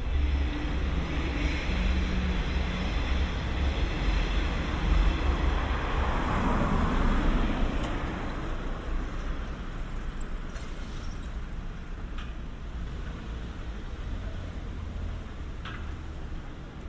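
Street traffic: a car passing by, its engine and tyre noise swelling about halfway through and then fading, over a steady low rumble.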